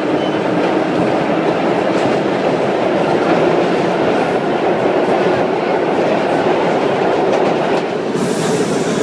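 Vintage 1930s-era subway car running at speed, heard from inside the car: a loud, steady rumble of wheels on rails with clickety-clack. About eight seconds in, a brighter hiss joins as the door at the end of the car is opened.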